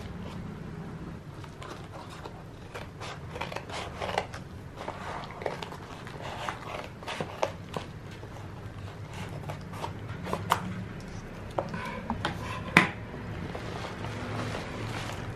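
Scissors cutting through a plastic mailer bag, with the bag crinkling as it is handled: a string of short snips and crackles, the sharpest snap near the end.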